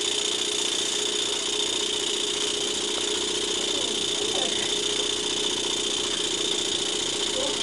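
Luton Bowman BM valveless model steam engine running steadily on live steam and driving a small dynamo, a constant hum with a steady hiss from the gas-fired boiler plant.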